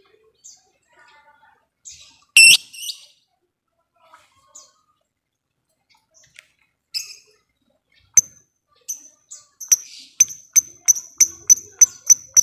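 Lovebird calls: scattered shrill chirps with one loud harsh call about two seconds in. From about ten seconds in comes a quick, even run of sharp ticks, about three a second, the ticking call keepers call ngetik.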